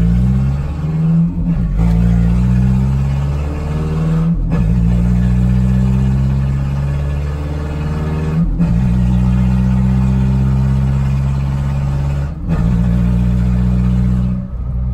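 Nissan pickup's engine heard from inside the cab, pulling hard under load and rising slowly in pitch. It breaks off briefly about every four seconds as the throttle lifts for each manual upshift.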